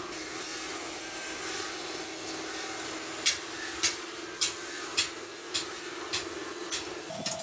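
Oxy-fuel cutting torch hissing steadily as it cuts circular griddle blanks out of a steel plate, with a steady hum under it. From about three seconds in, sharp clicks repeat about twice a second.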